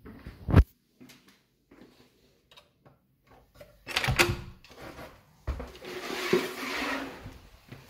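A sharp thump under a second in, then scattered clicks and a louder clatter of a balcony door's handle and latch being worked about four seconds in, followed by about two seconds of rushing noise as the door is opened.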